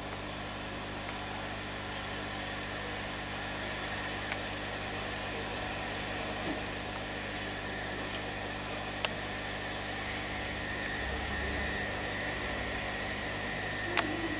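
Hot-air rework station blowing steadily while a component is desoldered from a laptop motherboard, with a thin high whine in the airflow and a few faint clicks.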